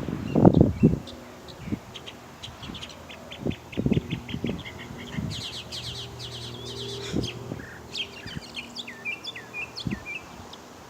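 Northern mockingbird singing a run of varied phrases, each a quick series of repeated chirps or sweeping notes, mimicking the calls of other birds. A few low thumps come through, the loudest about half a second in.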